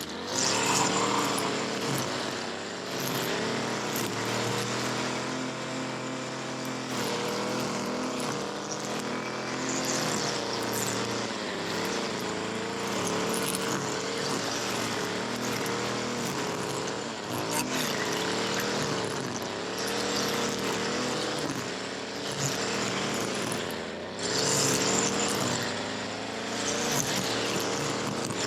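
Gas string trimmer's small two-stroke engine running, its pitch dipping and rising again and again as the throttle is worked while trimming.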